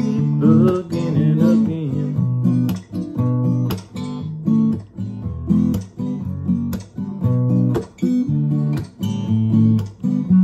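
Acoustic guitar strummed in a steady rhythm, chords changing from stroke to stroke, with no singing.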